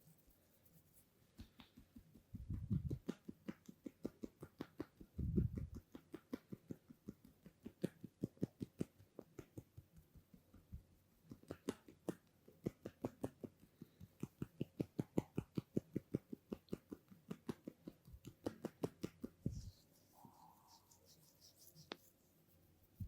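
Massage tapping: hands strike in a fast, even rhythm of about four strikes a second, with two longer, heavier thumps in the first few seconds. The tapping stops about three seconds before the end.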